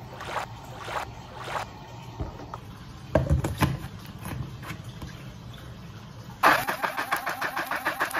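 A few clicks and a dull knock as the lid of a portable blender cup is handled and screwed on, then about six seconds in the blender's motor starts abruptly and runs with a fast, even pulsing as its blades chop watermelon chunks in almond milk.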